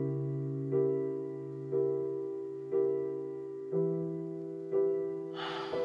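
Background music: slow piano chords, one struck about every second and left to ring and fade. A short rising hiss comes in near the end.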